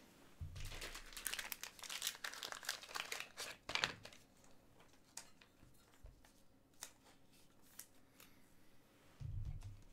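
Thin plastic crinkling as trading cards and their plastic sleeves or wrappers are handled. It is dense for the first few seconds, loudest around four seconds in, then thins to a few light clicks, with a short low bump near the end.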